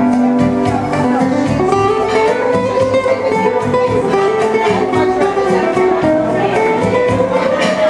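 Nylon-string classical guitar played fingerstyle: a steady stream of quickly picked notes carrying a melody over low bass notes.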